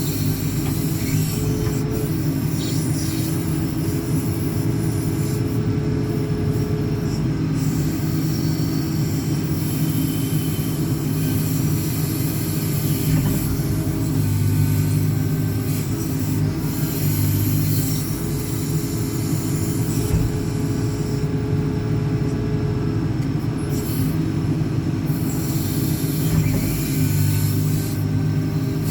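JCB 4CX backhoe loader's diesel engine running steadily under load while the rear backhoe boom works.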